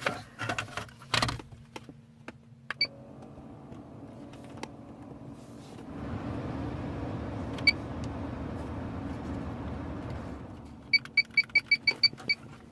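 Keys and small parts rattle, then the Jaguar XJR's electrics come on: single electronic beeps, a steady rushing blower-type noise that swells for a few seconds and stops, and near the end a quick run of about eight beeps.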